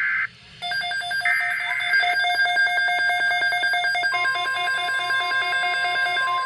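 NOAA Weather Radio Emergency Alert System signal: warbling SAME header data bursts, one ending just after the start and another about a second in, then about four seconds in the steady 1050 Hz warning tone begins, announcing a severe thunderstorm watch.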